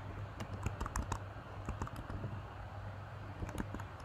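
Typing on a computer keyboard: a run of irregular key clicks over a steady low hum.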